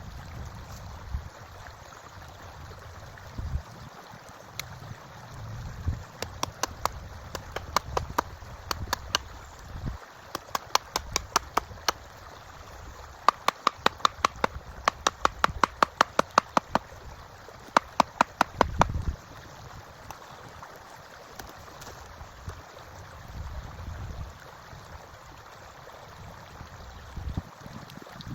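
Hammer blows on wood in several quick runs of about three to four strikes a second, each with a short ring, as a hammer drives nails into a wooden table. A stream runs steadily underneath.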